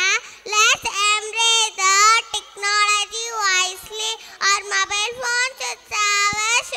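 A young child's high voice through a stage microphone, delivering a sing-song line in short syllables with a few held notes.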